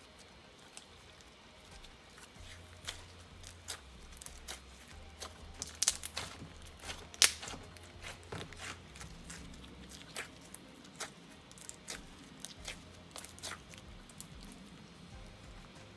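Foam-bead slime being squished and stretched by hand, giving scattered small pops and crackles, with a couple of louder snaps about six and seven seconds in.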